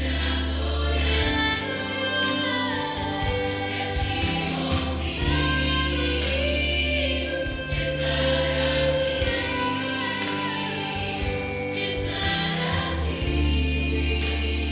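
A choir singing a slow song, with long sustained notes over held bass notes from the accompaniment.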